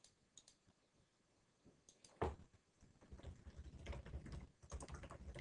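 Faint typing on a computer keyboard, a quick run of key clicks starting about three seconds in, as a file name is typed. A few lighter clicks come in the first second.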